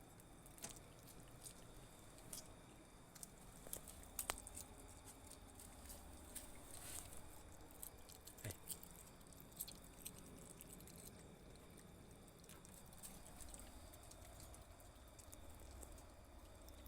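A small pet eating food: faint, irregular crunching clicks of chewing, busiest in the first half.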